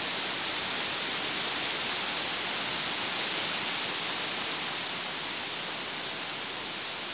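Steady outdoor rushing hiss with no distinct events, easing slightly toward the end.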